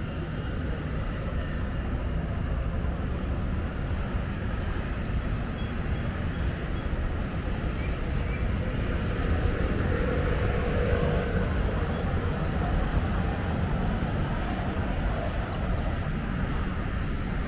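Steady low rumble of city street traffic, swelling a little about ten seconds in.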